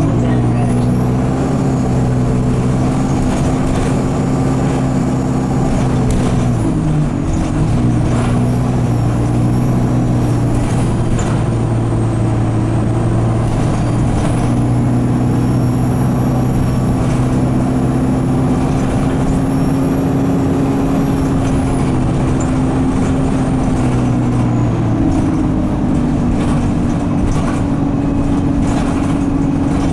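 Alexander Dennis Enviro200 bus engine held at steady high revs by a gearbox stuck in 2nd/3rd, with a high turbo squeal that rises and falls over the engine drone. The engine note drops about seven seconds in and steps back up near the end.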